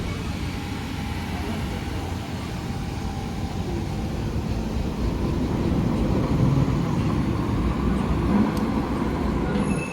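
A vehicle running with a steady low rumble.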